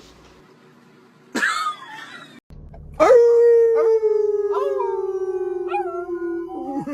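A dog howls on cue: one long, loud note that sinks slowly in pitch and lasts about four seconds. It comes after a short, falling cry about a second and a half in.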